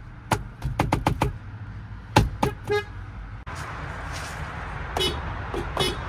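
Nissan Rogue horns tapped in short honks. First a quick run of about five, then three more. After a cut, a second Rogue's horn gives a few fainter short honks over steady outdoor noise.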